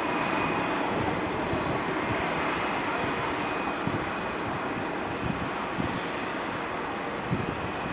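Jet noise from an Airbus A340-500's four Rolls-Royce Trent 500 engines at takeoff power as it climbs away, a steady rushing roar with a faint high whine, slowly fading.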